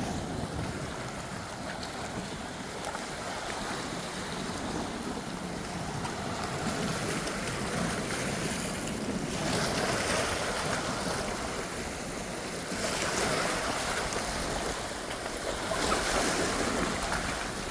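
Pacific Ocean waves washing on the shore, a steady rush that swells louder three times in the second half, with some wind on the microphone.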